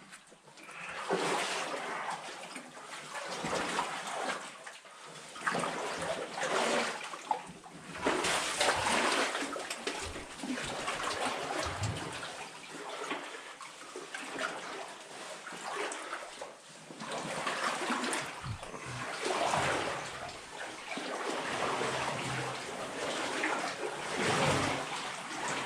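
Someone wading through deep standing water in a flooded mine tunnel: water sloshing and splashing around the legs in repeated surges, one with each stride.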